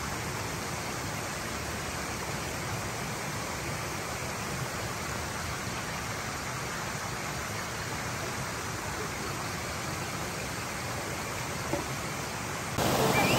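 Steady rush of flowing stream water, an even hiss with no breaks; it swells louder near the end.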